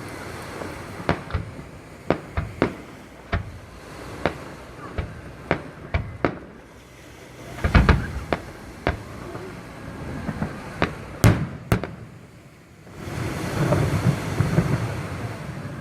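Fireworks display: a steady run of sharp bangs from bursting shells at irregular intervals, with a quick cluster of bangs about halfway through and two loud cracks a few seconds later. Near the end the sound thickens into a louder, denser stretch of noise.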